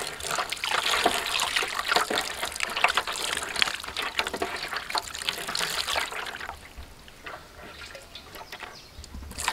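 Water pouring and splashing onto raw chicken livers and gizzards as hands rub and squeeze them clean in a tray, with wet squelches of the meat. It gets quieter after about six seconds.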